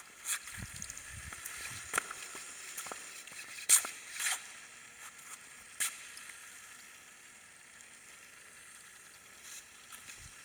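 Small remote-control Lego Technic car driving on a hard floor: a hissy running noise from its Lego large motor, gears and tyres, with a few sharp clicks and knocks, growing fainter after about six seconds. The battery is running low, as the owner suspects.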